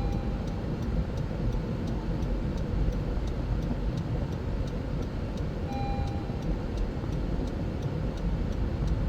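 Inside the cabin of a moving 2017 Honda CR-V with its 1.5-litre turbo engine: steady low engine and road rumble, with a light ticking about twice a second. A dashboard warning chime beeps right at the start and again about six seconds in.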